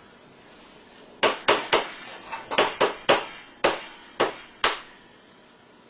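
About ten sharp knocks at an uneven pace, starting about a second in.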